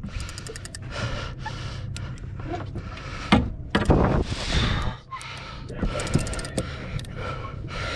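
A man breathing hard in gasps as he strains on a rod against a hooked giant bluefin tuna, with the strongest breaths about three and four seconds in. A steady low rumble and scattered clicks run underneath.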